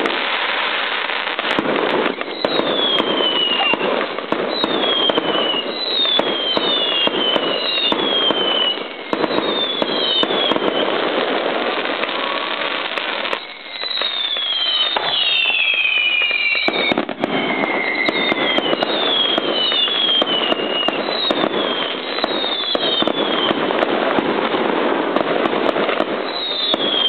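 Fireworks going off in a dense, continuous rattle of small bangs, with many short whistles that fall in pitch, often several overlapping. There is a brief lull about halfway through.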